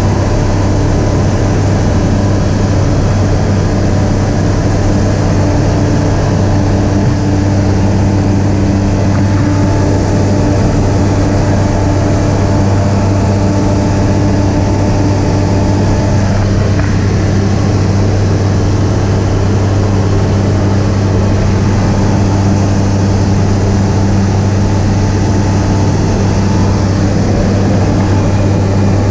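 Aeroprakt A-22 light aircraft's engine and propeller droning steadily at an unchanging pitch in flight.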